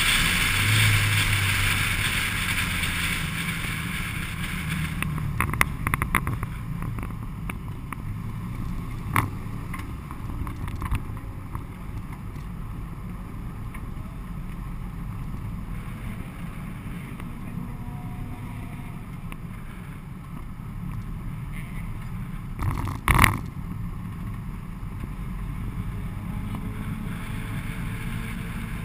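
Honda Civic EG9 SiR's 1.6-litre four-cylinder engine and wind and road noise dying away over the first few seconds as the car slows, then the engine running low at walking pace. A few sharp knocks and clunks come through, the loudest about 23 seconds in.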